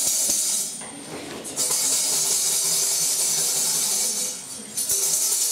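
Metal jingles, as on a tambourine, shaken continuously in long runs that pause briefly about a second in and again after about four seconds, over faint background music.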